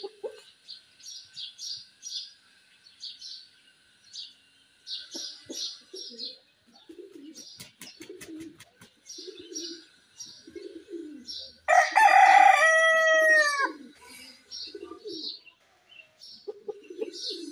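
A rooster crows once, loud, about twelve seconds in, the call lasting about two seconds and falling in pitch at the end. Around it, small birds chirp rapidly and steadily, with low soft bird calls repeating from about five seconds in.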